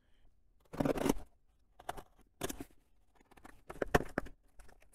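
Small cardboard parcel sealed with plastic packing tape being opened by hand: a handful of short, irregular scratchy rips and scrapes as the tape is picked at and pulled, with the box rustling in between.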